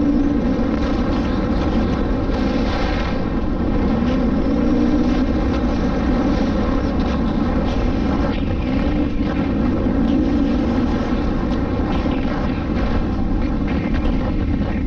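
KTM EXC-F 250's single-cylinder four-stroke engine running hard while being ridden, its revs rising and falling repeatedly with the throttle.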